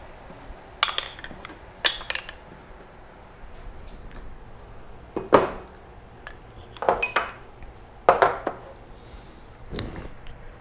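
Metal jeweler's hand tools being set down and picked up on a wooden workbench: a string of separate clinks and knocks, a couple of them ringing briefly.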